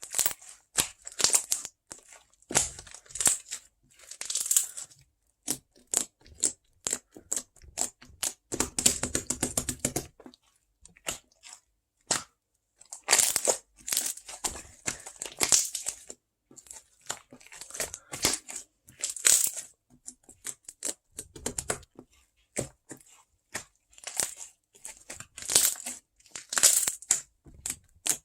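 Close-miked ASMR handling sounds: irregular bursts of crisp crackling and crinkling, each a second or so long with short quiet gaps between, and a longer, fuller rustle about nine seconds in.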